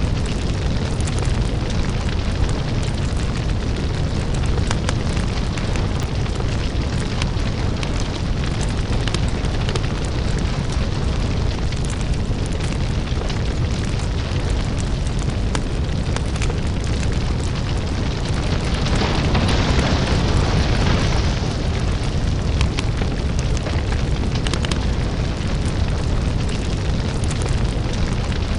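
Crackling lava fire: a deep, steady rumble under dense crackles and pops, with a louder hissing surge about nineteen seconds in that lasts a couple of seconds.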